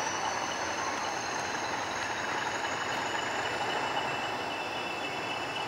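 Passenger train coaches rolling past on the rails with a steady running noise. A faint high whine rises slowly in pitch and then holds.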